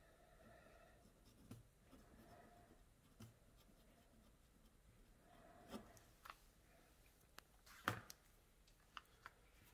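Near silence, with faint scratching of handwriting as annotation notes are written, and a few light clicks.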